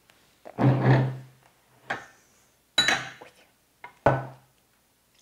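Four separate knocks and clinks of glassware being handled on a tabletop as a glass water pitcher is picked up to pour.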